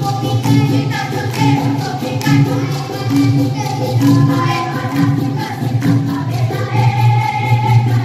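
Children singing dikir barat: a boy soloist at a microphone with the children's chorus, over a steady beat.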